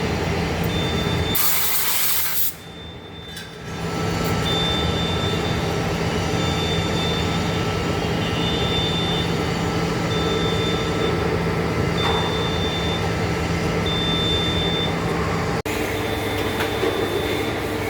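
Heavy-duty lathe running steadily as it turns a large steel part, a deep machine hum with steady tones over it, and a high beep repeating about once a second. A short hiss a second or so in, then the hum drops away for about two seconds before coming back.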